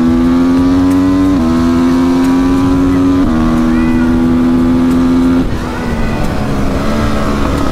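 2009 Honda CRF 450 supermoto's single-cylinder four-stroke engine running hard under load through a full Akrapovič exhaust. Its pitch steps down twice, about one and a half and three seconds in, as it is shifted up with the quickshifter. About five and a half seconds in the throttle closes and the engine drops to a lower, uneven note, then it pulls again near the end.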